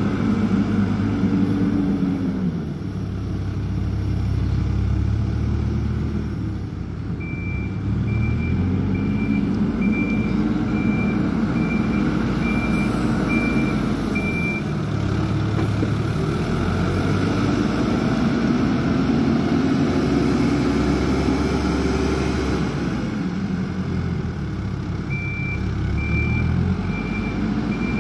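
Heavy vehicle engine working, its pitch repeatedly rising and falling over a few seconds at a time. A reversing alarm beeps about once a second for several seconds, twice.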